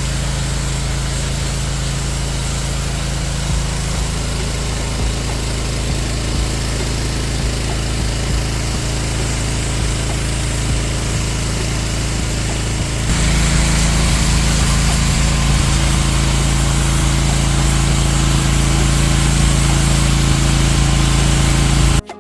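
A cleaning machine's motor running steadily and loudly, growing louder about 13 seconds in.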